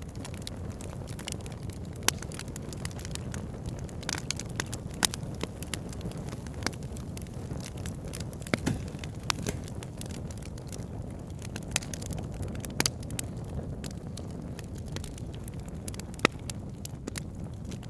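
Fire burning with a steady low rumble and frequent sharp crackles and pops, a few of them louder, the loudest near the end.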